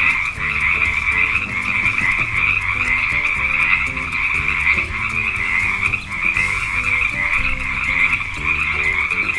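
Frogs croaking in a continuous, dense chorus over soft background music.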